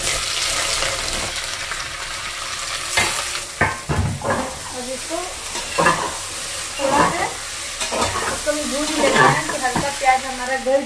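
Sliced onions sizzling in hot oil in an aluminium pressure cooker, the hiss loudest for the first three seconds after they go in. A metal ladle then stirs them, knocking and scraping against the pot about once a second.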